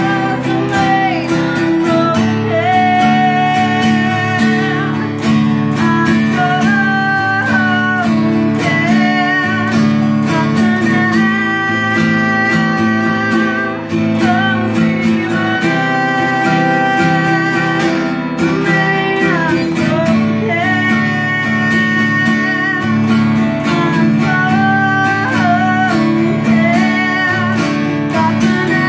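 A woman singing over a Taylor cutaway acoustic guitar strummed steadily with a pick.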